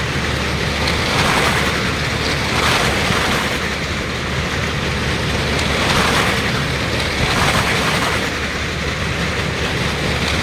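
Vehicle engines running hard as they circle the wall of a well-of-death ride. The sound swells and fades about every two seconds as they go round.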